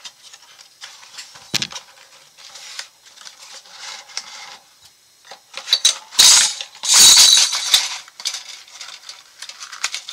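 Metal AR-15 parts clinking and clicking as they are handled and set down, with loud packaging rustling twice, about six and seven seconds in.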